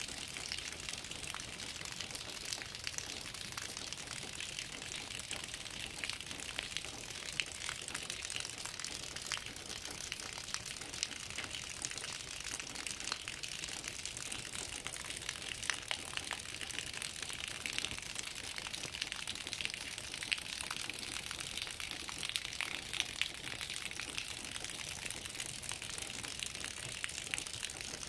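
Steady rain falling: an even hiss with many separate drop ticks scattered through it.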